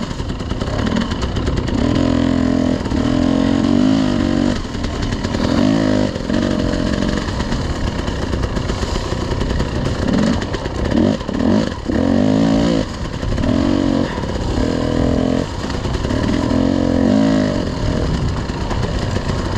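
Off-road motorcycle engine ridden slowly over rough ground, revving up and dropping back in short throttle bursts every second or two, with a run of quick blips about halfway through.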